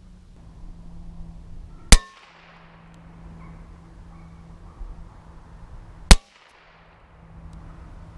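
.22 rifle shots fired at a divider propped against a metal target stand: two sharp cracks about four seconds apart, each with a short ring as the bullet strikes. The second shot knocks the divider off the stand.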